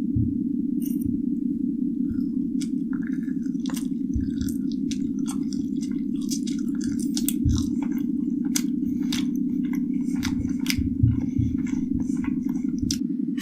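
Close-up chewing and biting of a person eating pancakes, with many short wet smacks and clicks, over a steady low drone.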